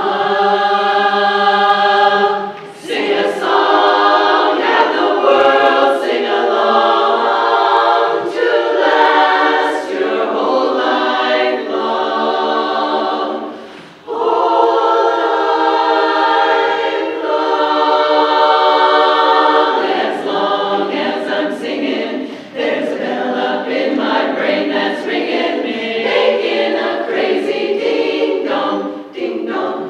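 Women's barbershop chorus singing a cappella in close harmony, loud and sustained. The chords break off briefly between phrases, and the singing comes in abruptly at the start after a pause.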